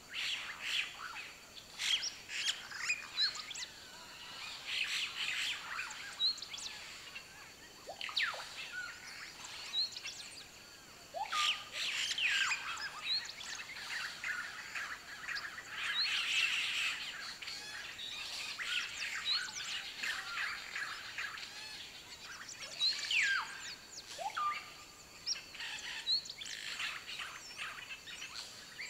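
Rainforest birds chirping and whistling: many short high chirps, a brief rising chirp that recurs every few seconds, and a few long sweeping whistles. A faint steady high hum runs beneath.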